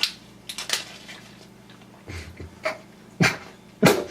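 A person's short, sharp breaths and coughs, several in a row, the loudest two near the end.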